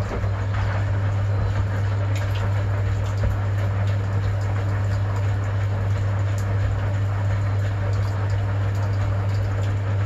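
1960 Constructa K5 front-loading washing machine running its wash motor and turning the drum: a steady deep hum that cuts in at the start, over the churning and sloshing of sudsy water in the drum.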